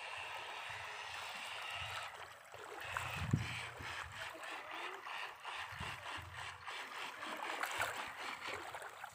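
Shallow water sloshing and splashing around a person's legs as he wades, with a few heavier splashes from his steps.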